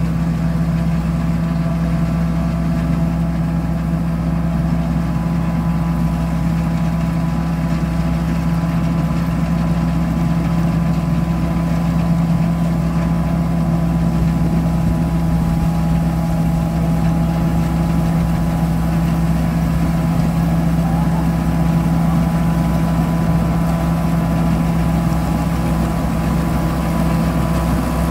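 Tracked rice combine harvester running steadily while it cuts and threshes rice, its engine and machinery making an even, unbroken drone with a strong low hum.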